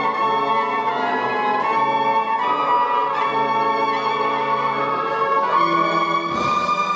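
Cornet band playing a slow melody in sustained held chords, the notes shifting every second or so.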